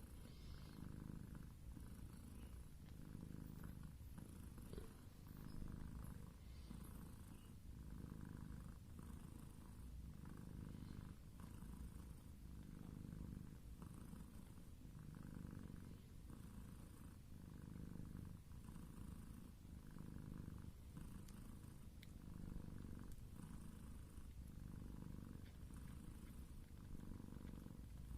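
Domestic cat purring softly and steadily, in an even rhythm of about one breath cycle a second.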